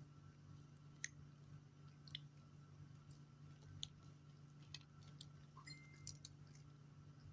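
Faint chewing and small mouth clicks of someone eating pandesal bread with peanuts, over a steady low hum.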